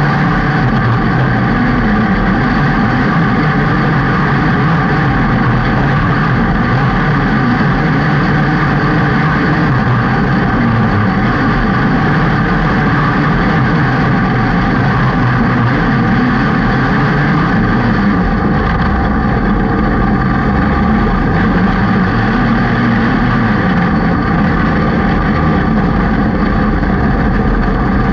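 Engine of a small single-seat dirt-track race car at racing speed, heard onboard and loud throughout. Its pitch rises and falls every few seconds as the driver comes on and off the throttle through the corners.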